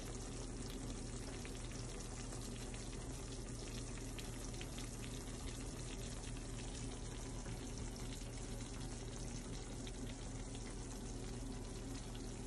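Cheese-topped chicken bacon ranch casserole fresh from the oven, bubbling and sizzling faintly in its glass baking dish: a steady fine crackle over a low hum.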